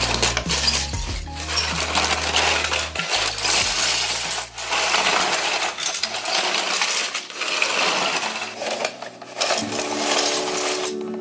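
Toy bulldozer being pushed with its blade down, scraping and clattering through dirt and small loose junk, with clinking rattles. Background music under it.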